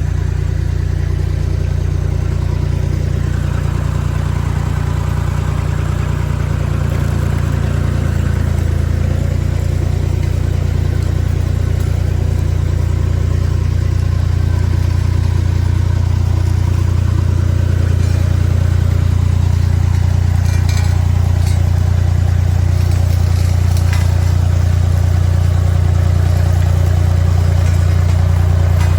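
Road roller's diesel engine running steadily with a deep, even hum that grows a little louder about halfway through, with a few faint crackles near the end.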